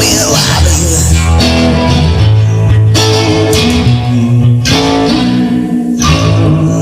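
Instrumental break in a rock song: guitars playing chords over a bass line, changing chord about once a second.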